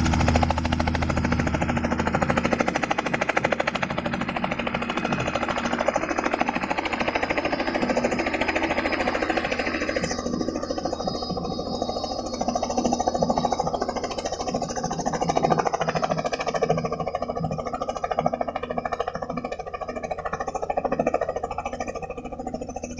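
Small two-seat helicopter on the ground with its main rotor winding down: a rapid, rhythmic chopping of the blades that slows toward the end. The higher whine cuts off about ten seconds in.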